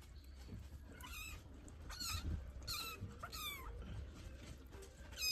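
Munchkin kitten mewing: about four short, high-pitched mews, each falling in pitch.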